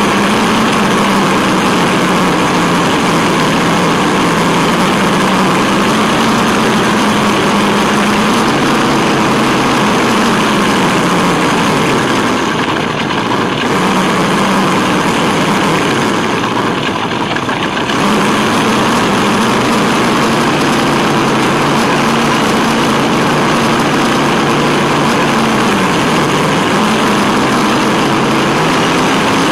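Electric drivetrain of a 1/10 Tamiya Wild Willy 2 RC truck heard from its onboard camera: motor and gear whine rising and falling in pitch with the throttle over a steady rush of tyres on paving and gravel. The whine eases off twice around the middle.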